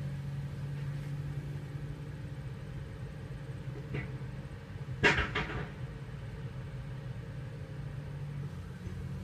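An engine running steadily, with a faint knock about four seconds in and a short cluster of sharp clanks about a second later.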